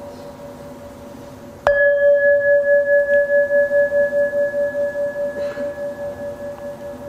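A Buddhist bowl bell struck once with a clear, steady ring that pulses about three times a second as it slowly fades. This is the bell invited to close a Dharma talk. Before the strike, the faint ring of an earlier strike is still dying away.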